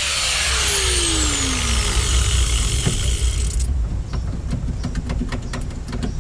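Power cutting tool on rusted sheet metal from a truck's rocker panel: a loud hiss with a whine that falls in pitch over the first two seconds, stopping abruptly a little over halfway through. A few light taps and clicks follow.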